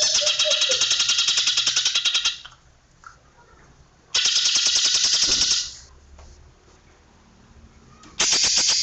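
Cucak ijo (green leafbird) singing its rapid-fire 'tembakan' song: bursts of fast, tightly packed sharp notes like a machine-gun rattle. The first burst stops about two seconds in, a second lasts about a second and a half midway, and a third starts near the end, with quiet gaps between them.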